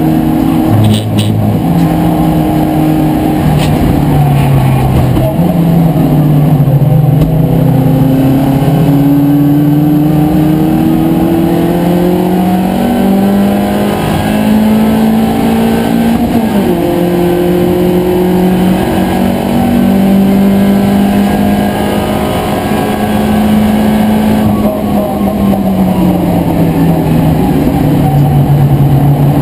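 BMW Compact race car's engine running hard at racing revs, heard from inside the caged cabin. Its pitch climbs slowly for a long stretch, drops sharply about halfway through, holds high, then falls again a few seconds before the end.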